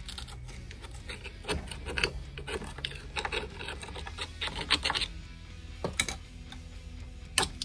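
A thin metal pick scraping and clicking inside the housing of a 1929 Ford Model A distributor in short, uneven strokes, cleaning out old insect debris, with background music underneath.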